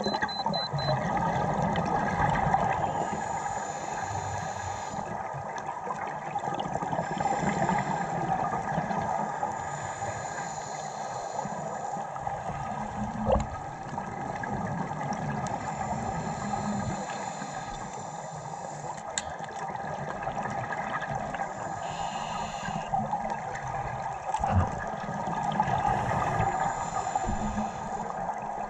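Scuba diving heard underwater through a camera housing: regulator breathing and exhaled bubbles, a rushing bubbling noise that swells and fades every few seconds. A few sharp clicks stand out, about halfway through and again later.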